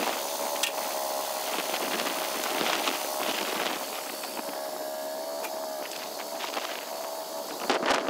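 Woodland Mills portable bandsaw sawmill running, its gas engine holding a steady speed with a steady whine over a rushing noise. A couple of sharp knocks come near the end.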